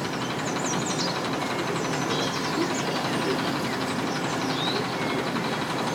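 An engine idling steadily, with birds chirping now and then.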